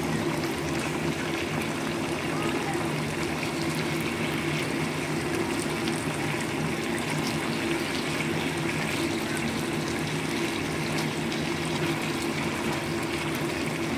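Chicken wings in sauce sizzling and bubbling in a pan, a steady crackling hiss over a constant low hum.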